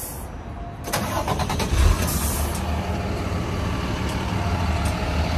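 Hino box truck's diesel engine cranked by its starter about a second in, catching and then running steadily.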